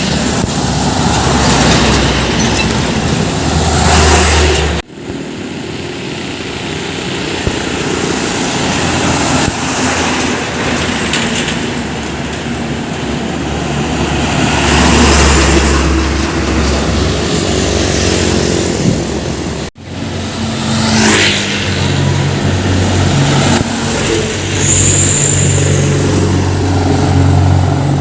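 Heavy trucks passing on a road one after another, engine and tyre noise swelling and fading as each goes by. The sound cuts off abruptly twice, about five seconds in and again near twenty seconds.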